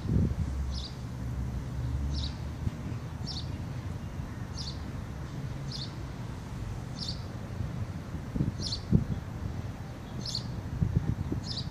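A small bird chirping repeatedly, one short high chirp about once a second, over a low wind rumble on the microphone with a few dull thumps.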